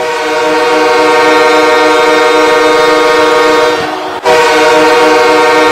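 Manchester Monarchs' hockey goal horn sounding: one long, loud, steady horn tone that breaks off briefly about four seconds in and then sounds again.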